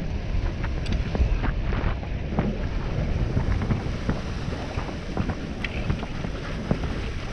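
Wind buffeting an action camera's microphone while skiing downhill at about 20 km/h, a steady low rumble with the hiss of skis sliding over snow. Scattered small clicks and scrapes run through it.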